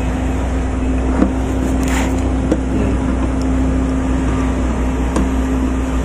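Steady low engine drone from nearby road-construction machinery, with a few light clicks and taps of hand work on the microwave's metal chassis.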